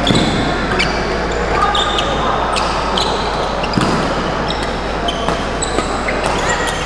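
Doubles badminton rally: sharp racket strikes on the shuttlecock and brief squeaks of shoes on the court, over a steady murmur from the crowd.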